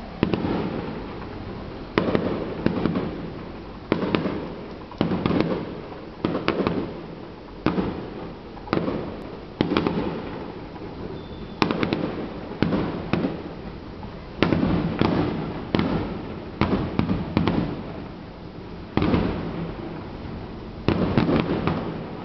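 Aerial firework shells bursting: sharp booms every second or so, some in quick clusters, each trailing off in a rolling echo.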